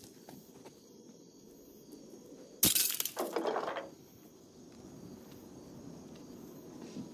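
A wooden block thrown against a glass window pane hits with one sharp crack of breaking glass about two and a half seconds in, leaving the pane cracked, followed by about a second of clattering that dies away.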